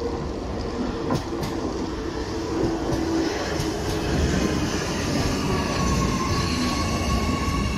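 Oslo Metro MX3000 electric train running past close by, a steady rumble of wheels on rails with a couple of sharp clicks just over a second in. A steady whine comes in near the end.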